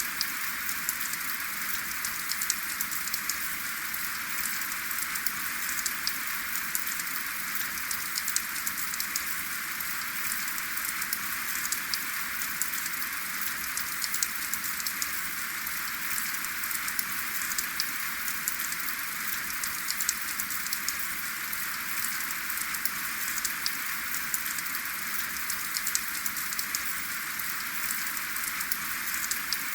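Steady rain falling, with a dense patter of individual drops ticking over an even hiss and no thunder.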